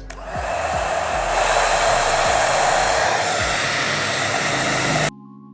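Agaro Volumizer hot-air brush hair dryer running, a steady rush of blown air that starts at once and cuts off abruptly near the end.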